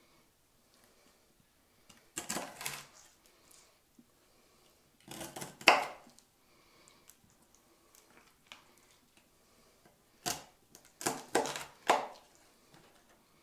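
Kitchen knife cutting through pieces of carp on a wooden chopping board: short spells of blade scraping and knocking on the board, about two seconds in, about five seconds in, and again several times around ten to twelve seconds in.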